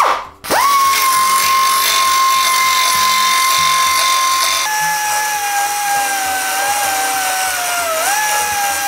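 Pneumatic belt-file grinder spinning up and running with a high whine over a hiss as it sands a carbon fibre bike frame. About halfway the whine drops lower, then it wavers and sags briefly as the belt is pressed into the frame before picking up again.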